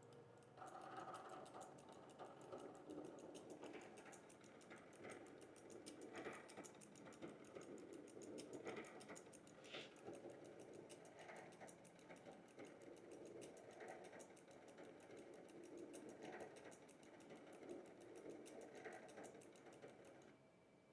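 Small stepper motor advancing a paper punch card row by row through an optical reader, a faint run of quick, even clicks with a soft whirr as the punch-card computer executes its program.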